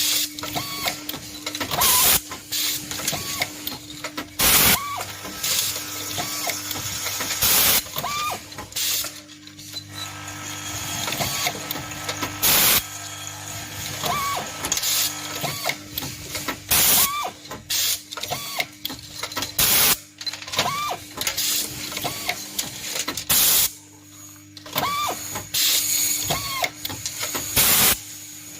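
Cabinet hinge assembly machinery running: a steady hum with busy light mechanical ticking, broken by loud sharp clacks at uneven intervals every few seconds.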